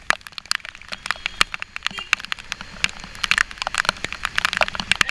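Raindrops striking the GoPro's waterproof housing as rapid, irregular crackling ticks, over a low rumble underneath.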